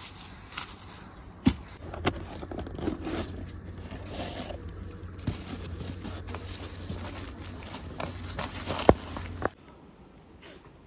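Rustling and scraping as a backpack and a rolled camping mat are handled and the mat is unrolled over dry leaves, with a few sharp knocks, the loudest near the end. About a second before the end it cuts to a much quieter outdoor background.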